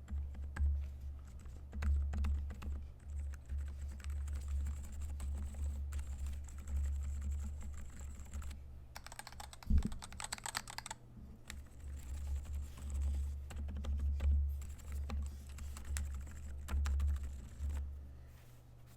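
Steady, continuous typing on a custom 65% mechanical keyboard with KAT Milkshake keycaps, keystrokes following in quick succession, with one louder thump about halfway through.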